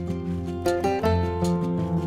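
Background music: sustained melodic notes that change every half second or so, over a light regular beat.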